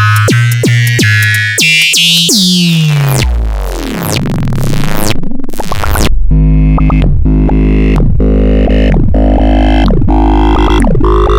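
Electronic music with synthesizer and a regular beat. Partway through, a sweeping glide in pitch gives way to a steady deep bass line under the beat.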